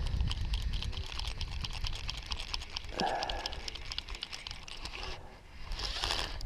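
Fly reel's click-and-pawl mechanism ratcheting in a rapid run of small clicks as line is wound in against a hooked striped bass. The clicking stops about five seconds in, and a short rush of noise follows near the end.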